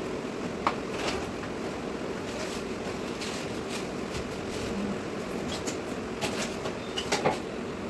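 Steady fan-like room noise with a few sharp clicks and knocks: one about a second in and a quick cluster near the end.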